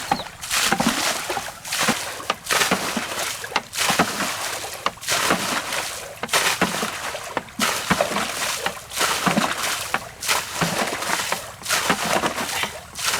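Water being scooped up and flung out of a shallow pond by hand-bailing, a splash about once a second as the pond is drained to get at the fish.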